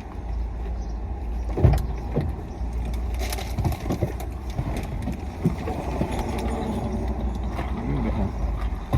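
Steady low rumble of a car heard from inside the cabin, with a few knocks and handling clicks, the loudest about one and a half seconds in.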